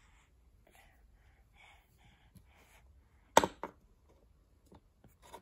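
Two quick sharp knocks on a wooden peg puzzle board about three and a half seconds in, the first louder. A few faint small knocks and rustles otherwise.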